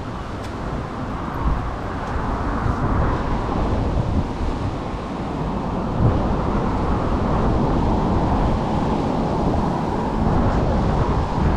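Wind buffeting the microphone over a steady outdoor rush, growing slowly louder.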